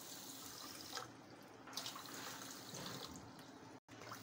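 Water poured from a plastic measuring cup into a steel pan of sugar: a faint trickle and splash.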